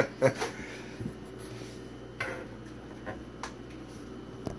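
A wooden kitchen cabinet door being opened and handled: a few light clicks and knocks, spread about a second apart.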